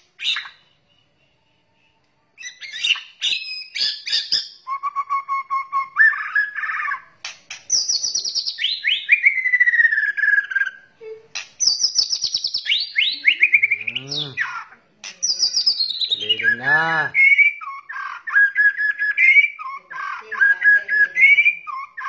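White-rumped shama singing a long, varied song of loud, clear whistles, with high phrases sweeping down in pitch and rapid trills and repeated notes. Two harsher, lower calls come about two-thirds of the way through.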